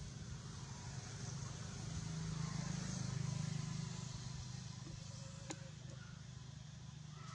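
Low engine hum of a passing motor vehicle, swelling a couple of seconds in and fading again, with a single sharp click later on.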